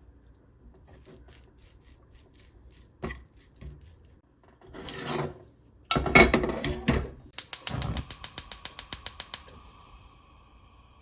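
Kitchen handling sounds: a knock, a short rustle and a loud clatter, then a quick, even run of ratcheting clicks, about ten a second for two seconds.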